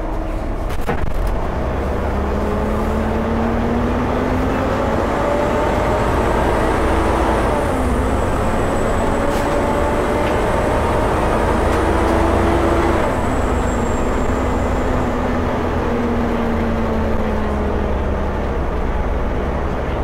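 Volvo B7TL double-decker bus's six-cylinder diesel engine and driveline under way, heard from the upper deck. The pitch climbs twice as it pulls up through the gears, then falls away over the last few seconds, with a thin high whine over it through the middle: the 'hoover' sound enthusiasts know from this chassis.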